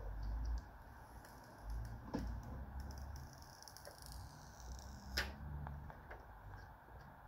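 A thin clear plastic screen-protector sheet being handled and flexed, crackling with two sharp clicks, about two seconds in and again about five seconds in, the second the louder.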